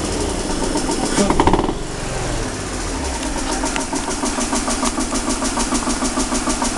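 BMW 328i E46's straight-six engine, blipped once about a second in so the revs rise and fall back, then settling to an idle with a regular pulsing. This is the engine noise the owner is concerned about, which comes with the check-engine light on.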